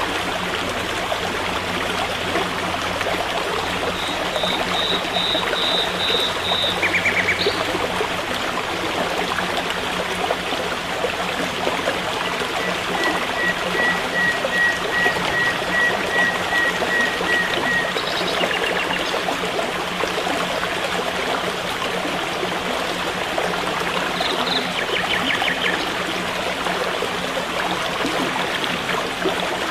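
Forest stream running steadily. Over it, short high chirping calls come in bursts a few times: a quick run of notes, a brief trill, and a slow series of about a dozen even notes.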